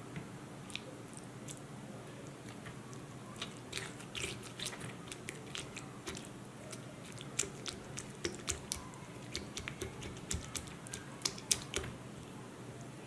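A spoon stirring and pressing grated ginger, lemon juice and honey inside a hollowed-out raw onion: quiet, irregular little clicks and wet crunches, coming thicker in the second half.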